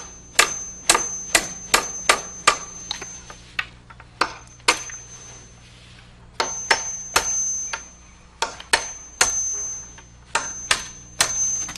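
Hammer driving galvanized finish nails into wooden fascia boards: runs of sharp blows, about two a second, each with a high metallic ring, in several groups with short pauses between.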